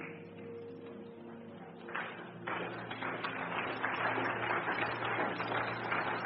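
Soft sustained keyboard notes, joined about two and a half seconds in by a dense patter of a congregation applauding that swells and holds.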